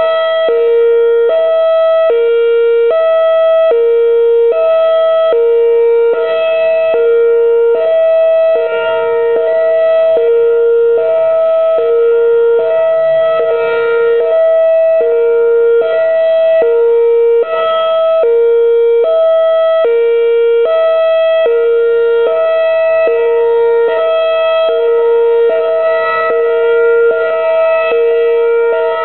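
Whelen Vortex-R outdoor warning siren sounding a loud steady two-note chord with no rise or fall in pitch. Each note drops out briefly every second or so.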